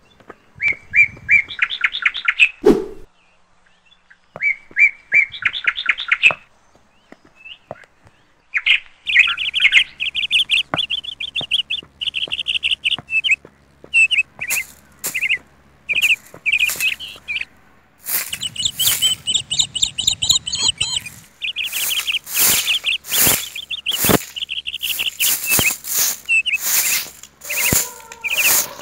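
Small birds chirping. Two short trilled bursts come first, then chirping that runs almost without a break from about a third of the way in, growing busier with many short, sharp notes toward the end.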